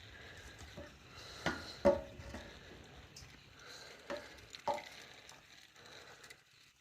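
Handling noise of the excavator's hydraulic suction screen and parts: a low rustle with four light knocks, some with a brief metallic ring.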